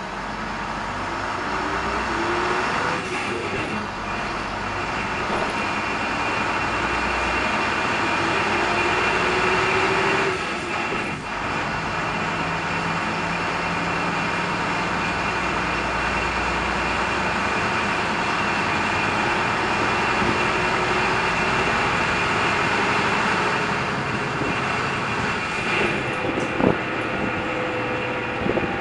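Interior noise of a DAF MB200 city bus under way: the engine and drivetrain run loudly, with the pitch rising as the bus accelerates and dropping back around 3 and 11 seconds in as it changes gear. A steady high whine runs underneath, and a single sharp knock comes near the end.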